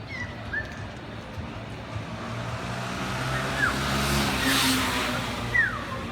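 A car passing close by in a narrow street, its engine hum and tyre hiss swelling to a peak about four seconds in and then fading. Short falling chirps sound several times over it.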